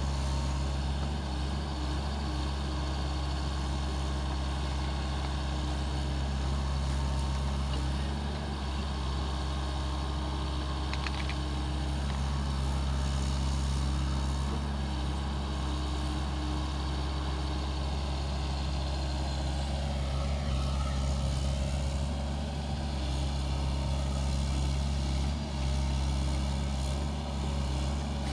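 SANY SY75C mini excavator's diesel engine running steadily as a low, even drone while the arm and bucket work.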